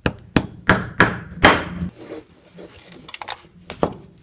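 A hammer striking a steel pin punch five times in quick succession to drive a pin out of a cast aluminum handle; the last strike is the loudest. A few lighter clicks of metal parts follow near the end.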